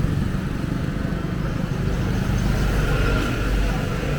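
Street traffic: motor vehicles running past with a steady low engine rumble.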